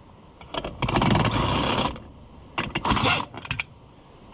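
Metal hand tools clinking and scraping while a tire is worked onto a wheel rim: scattered clicks, then about a second of rapid ratcheting rasp, then another run of sharp clicks and knocks.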